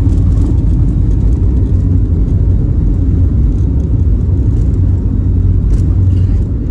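Steady low rumble inside the cabin of an Airbus A320-family jet airliner as it rolls along the runway, easing slightly near the end.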